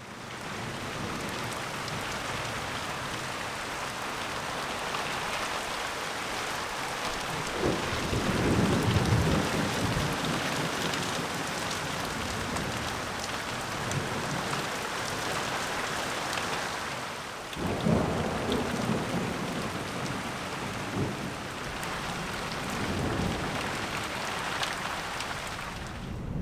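Steady rain falling, with rolls of thunder rumbling low beneath it: a strong one about a third of the way in, another past the halfway mark, and fainter ones in between and near the end.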